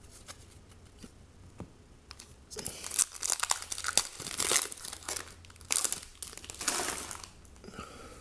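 Foil wrapper of a trading-card pack crinkling and tearing as it is opened, in a run of sharp crackly bursts that start about two and a half seconds in and die away near the end. Before that, only faint ticks of cards being handled.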